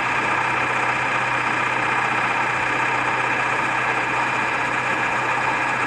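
Ford F-250's Power Stroke turbo-diesel V8 running with a steady, even drone.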